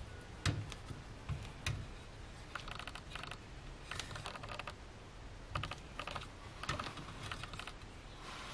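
Hex screwdriver turning a small hex bolt into a mounting block on an aluminium extrusion frame: a few separate metallic clicks, then several short runs of rapid clicking as the driver is turned and reset.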